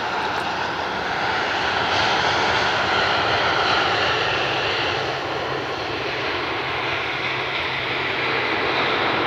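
Jet engine noise from a Boeing 767-300 freighter rolling along the runway just after landing: a loud, steady rush of engine noise with a low hum beneath it, swelling a little about two seconds in.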